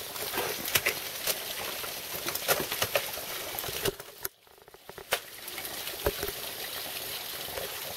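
Crunching and scraping of crampons and ice tools on ice and snow, with scattered sharp clicks, and a brief lull about halfway through.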